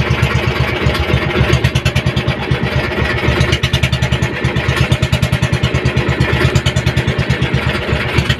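The engine of a motorized outrigger boat under way, running steadily with a fast, even pulsing exhaust beat.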